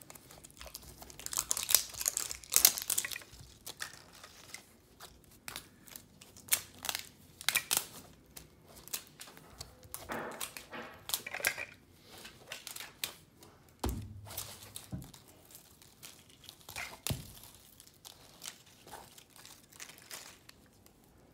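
Plastic packaging of an LOL Surprise ball crinkling and tearing as it is peeled open by hand, in scattered crackles, with a couple of soft knocks about two-thirds of the way through.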